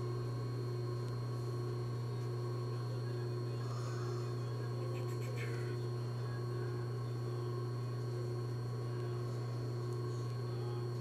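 Steady electrical hum, with faint rustling of fabric being handled around four to six seconds in.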